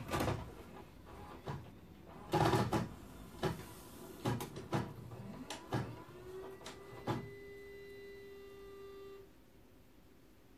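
Sony VCR's mechanism loading a VHS cassette: a series of mechanical clicks and clunks as the tape is drawn in and threaded, then a motor whine that rises in pitch about five seconds in, holds steady for about three seconds and cuts off suddenly.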